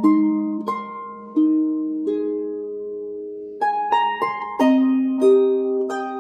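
Background music: a slow melody of plucked, harp-like notes, each ringing on and fading, over a sustained low note.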